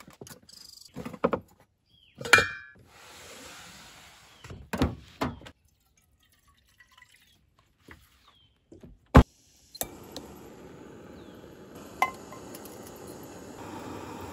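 Containers clinking and knocking as a wooden storage drawer is rummaged through, then one sharp click. From about ten seconds in, a butane canister camp stove burns with a steady hiss under a pot, with a single clink near the end.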